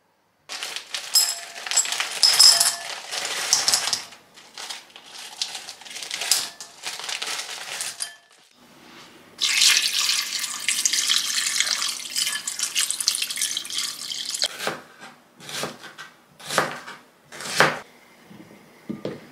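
Kitchen tap water running steadily for several seconds, then a few short sharp knocks and rustles as mushrooms are broken apart by hand and dropped into a ceramic bowl.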